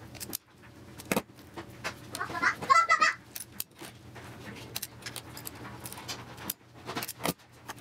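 Hand wire stripper being worked on thin hookup wire as a jumper wire is cut and stripped: an irregular scatter of sharp clicks and snaps with small metallic rattles.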